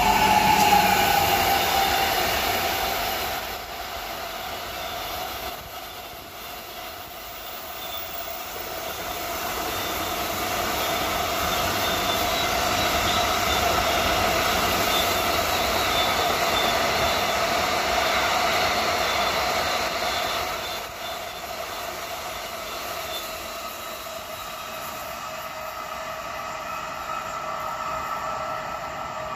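A train running along the track, with steady high whining tones over the rumble of the wheels. It grows louder through the middle and eases off after about twenty seconds.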